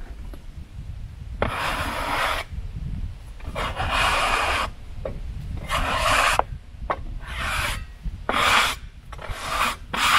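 Rough rasping strokes of a hand or brush sweeping sawdust off the face of a freshly sawn red oak board, about half a dozen strokes of up to a second each, over a low rumble.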